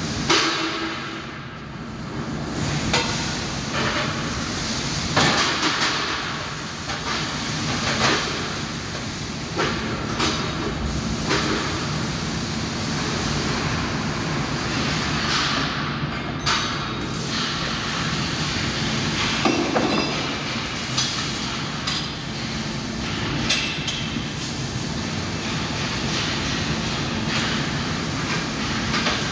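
Steady din of a metalworking factory hall, with irregular clanks and knocks of steel parts every few seconds.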